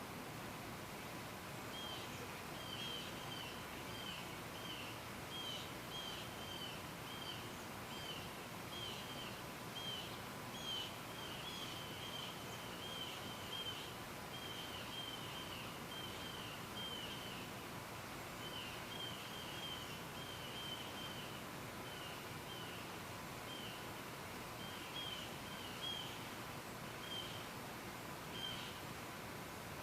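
A bird chirping over and over, short falling chirps about two or three a second in runs with brief pauses, over steady outdoor background noise.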